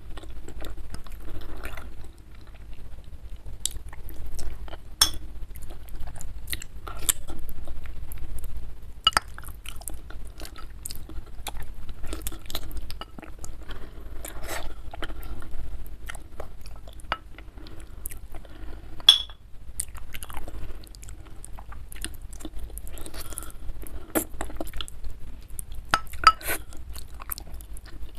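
Close-miked chewing and biting of goat-trotter curry (gulai kaki kambing), eaten by hand. Sharp mouth clicks and crunches come at irregular intervals.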